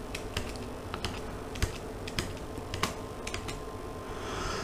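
Faint, irregular sharp clicks, about a dozen scattered through, over a steady low electrical hum.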